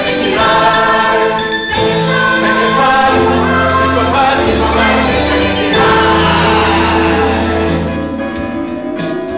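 Mixed choir singing long held chords over a steady low bass, with instrumental accompaniment.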